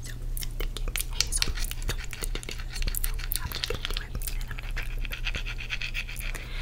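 Ice cube tapped and scratched with fingernails close to the microphone: rapid, irregular clicks with a scratchy stretch in the second half.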